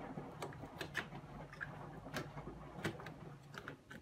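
Irregular small clicks and taps of a washing machine's control circuit board and its plastic mounting being handled and fitted into place, over a low steady hum.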